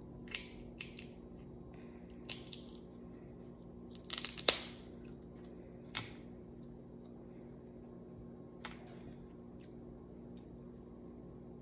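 Cooked crab leg shells cracked and snapped apart by hand: a few scattered sharp cracks, with the loudest cluster about four seconds in. A faint steady hum runs underneath.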